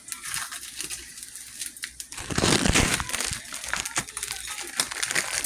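Crinkling and rustling with scattered small clicks, swelling into a louder rustle about two seconds in.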